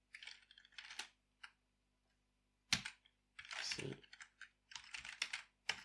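Computer keyboard typing in short bursts of keystrokes, with a pause of about a second in the middle broken by one sharp key click before the typing picks up again.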